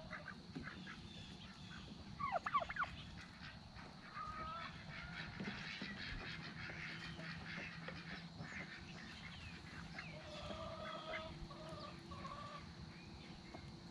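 Backyard poultry flock of chickens, turkeys and geese calling: scattered short calls and clucks, with a brief louder run of falling calls about two seconds in.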